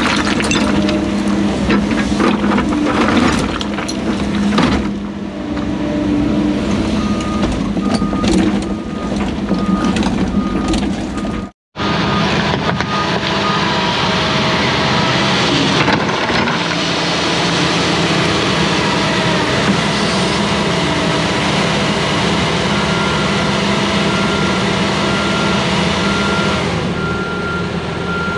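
Hyundai crawler excavator's diesel engine running under hydraulic load while it digs riverbank riprap, with rock knocking and clattering in and out of the bucket. A repeating beep comes in at times, and the sound cuts out for a moment near the middle.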